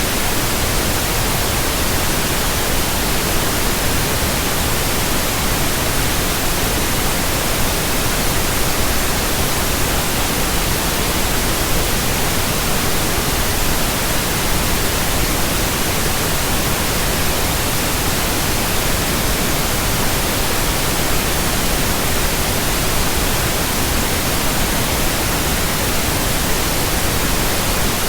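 Steady pink noise: an even, unchanging hiss spread across the whole range of pitch, played as a relaxation and sleep sound.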